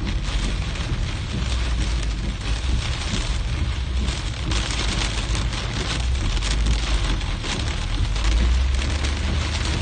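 Heavy storm rain hitting a car's roof and windscreen in a dense, steady patter, heard from inside the cabin over a low rumble.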